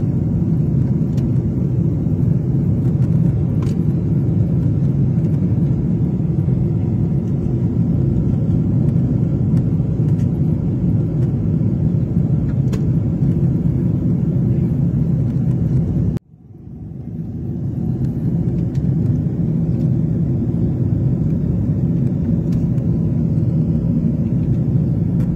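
Steady low roar of jet engines and rushing air heard inside an airliner's cabin in flight. About 16 seconds in the sound cuts out abruptly, then fades back in over a second or two.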